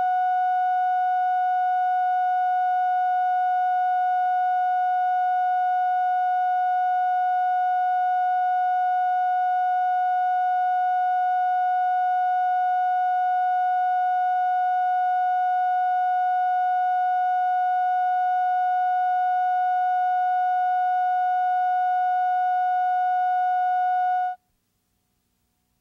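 Steady line-up test tone recorded with the colour bars and slate at the head of a broadcast videotape: one unchanging pitch held for over twenty seconds, cutting off suddenly near the end.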